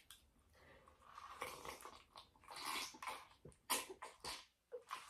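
Faint close-miked chewing: wet mouth smacks and short clicks of food being bitten and chewed, starting about a second in.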